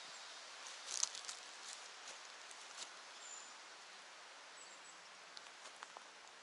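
A few crunching footsteps on dry pine needles and forest litter, most of them in the first three seconds, over a faint steady hiss. A brief high chirp sounds about three seconds in, and a few light ticks come near the end.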